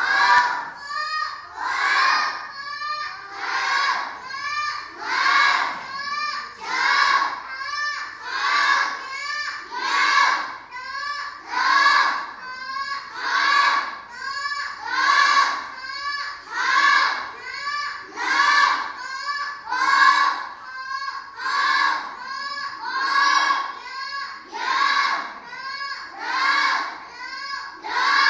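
A class of young children chanting Khmer consonant names aloud together, syllable by syllable in a steady rhythm, as each letter on the chalkboard is pointed to.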